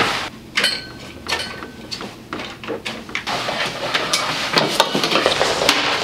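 Clatter of hard household objects being handled and set down: a run of knocks and clicks, with a short metallic clink that rings briefly about a second in.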